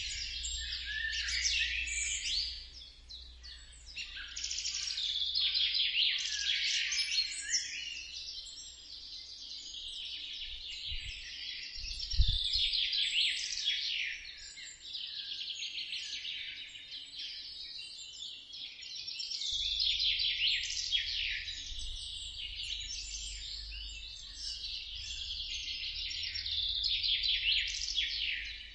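Dense chorus of many small birds chirping and twittering at once, with no pause. A single low thump sounds about twelve seconds in.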